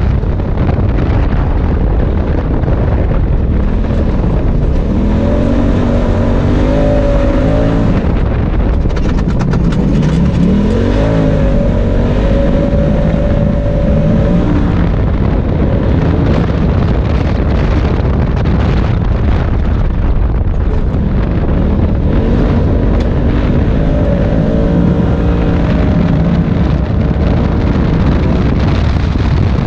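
Polaris RZR side-by-side's engine running hard on a dirt track, its pitch rising and falling three times as the machine speeds up and slows through the corners, over a steady loud rumble.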